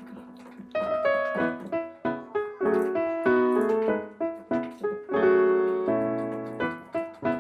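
Background piano music: a melody of struck notes over chords, with a held chord at the start and new notes about every half second after.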